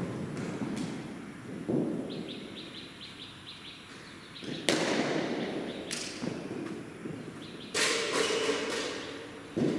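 Cricket net practice: a series of sudden knocks and thuds from the ball, the sharpest about halfway through, with a bird chirping rapidly in the background.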